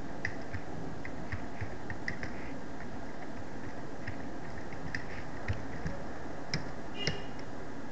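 Computer keyboard keys clicking at an irregular pace as a name is typed, over a steady background hum.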